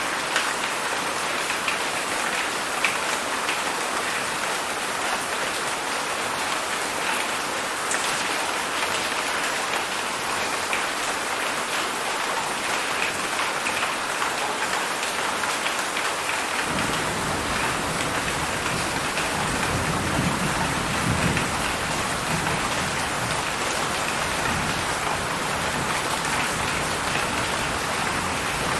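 Heavy rain falling steadily, a dense even hiss of drops. About two-thirds of the way through, a deep low rumble comes in underneath and stays.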